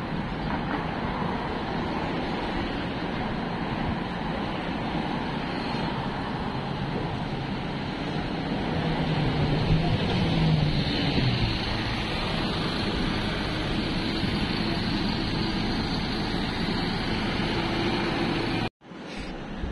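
Steady road traffic noise, with a bus passing close by about halfway through, its engine hum swelling and then fading. The sound cuts out for a moment near the end.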